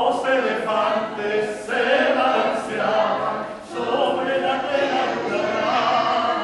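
Male voices singing in a lyric, operatic style, with long held notes.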